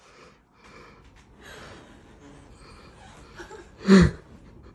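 A woman's sharp, loud gasp about four seconds in, her voice dropping in pitch, after soft breathy sounds: a gasp of surprise and emotion.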